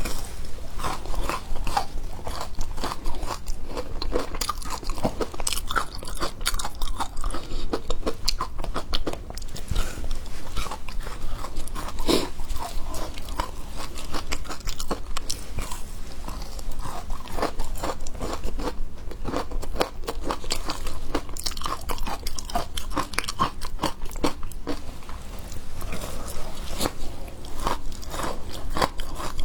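Frozen matcha ice being bitten and chewed, crunch after crunch in quick, irregular succession.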